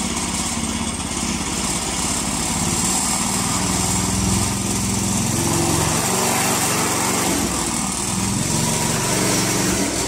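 Small petrol engine of a fiber optic cable pulling machine running steadily in its fast-pull setting, as a cable is drawn through its drive belts. From about three seconds in the engine runs a little louder and higher.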